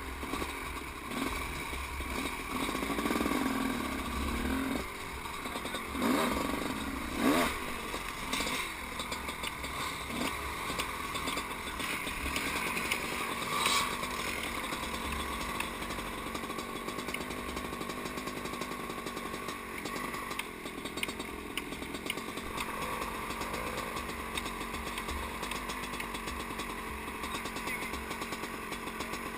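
Small engine running, with a few brief louder surges in the first several seconds, then running steadily.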